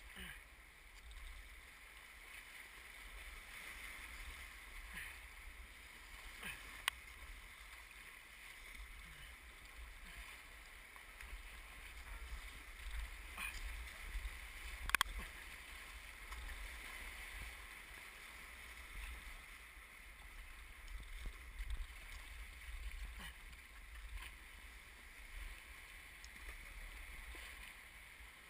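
Kayak on a river: a steady, quiet hiss of moving water with small splashes, over a low rumble. Two sharp knocks stand out, one about seven seconds in and a louder one about fifteen seconds in.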